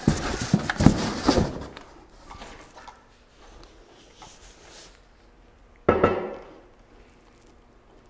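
Cardboard box and packing rustling and knocking as a UR10 robot arm is lifted out, then quieter handling rustles. About six seconds in, a single hard thump as the robot's base is set down on the table top.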